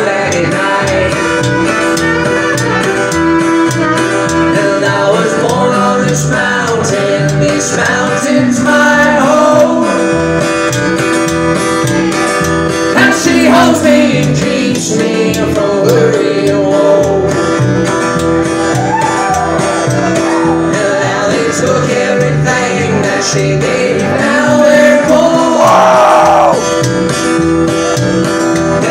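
Live acoustic string band playing a country/bluegrass song: acoustic guitar, fiddle and upright bass, with singing.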